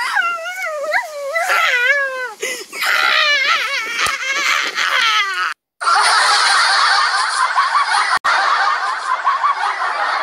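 A young man laughing hard in high, wavering peals. After a short break, a loud, rough, drawn-out yell held for several seconds.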